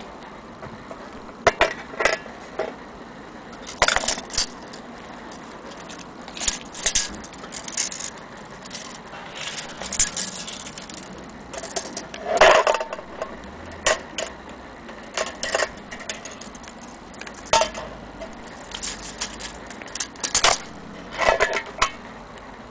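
Metal parts of an antique Kienzle Vienna wall clock movement and its brass pendulum clinking and rattling as they are handled, in short irregular clatters with the loudest near the middle.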